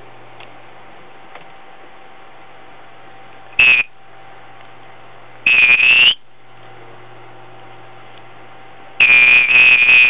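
African grey parrot giving three loud, shrill, buzzing calls: a short one about three and a half seconds in, a longer one near six seconds, and a long pulsing one from about nine seconds on.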